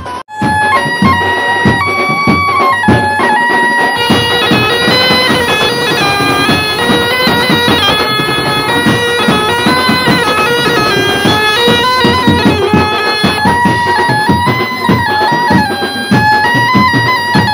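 Background music: a reedy wind-instrument melody of held, stepping notes over a steady drum beat. The music breaks off for an instant near the start, then a new tune begins.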